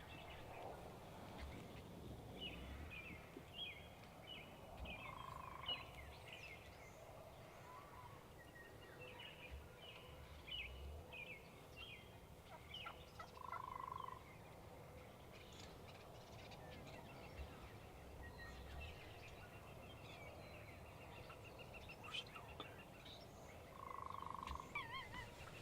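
Wild Merriam's turkey toms gobbling at a distance, several rattling gobbles in a row, some running into each other.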